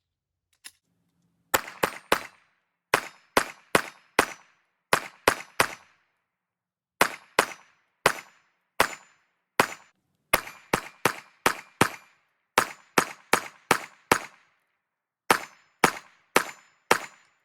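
9mm Glock slimline pistol firing Federal HST 147-grain rounds in quick strings of two to five shots with short pauses between, a long run of sharp gunshots starting about one and a half seconds in.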